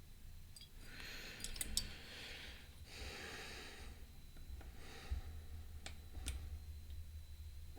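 A few sharp clicks and light scrapes of a pick working the pins of an Abus P12R dimple lock. They come between several audible breaths from the picker, which are the loudest sound in the first half.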